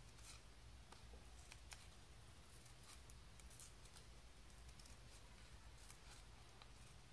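Faint, irregular snips of small scissors cutting through a thick fold of paper, over a low steady room hum.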